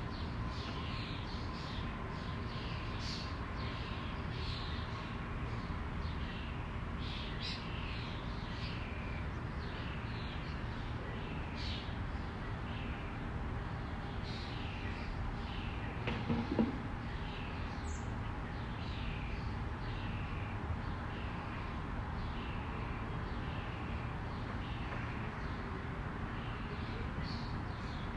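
Birds chirping outdoors, short falling chirps repeating about once a second over a steady low background rumble, with one brief low knock about halfway through.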